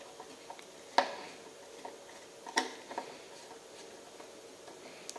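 Sharp clicks and light ticks of a small screw being taken out of a Ubiquiti NanoStation's plastic housing: two clear clicks, about a second in and near the middle, with faint ticking between.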